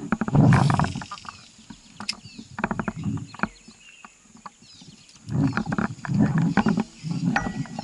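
Low, rough pulsing animal calls in repeated short bursts, loudest near the start and again in the second half, with faint high chirps of small birds.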